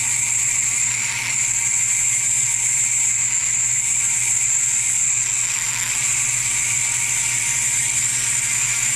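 Foredom flexible-shaft rotary tool running steadily at high speed with a constant high whine.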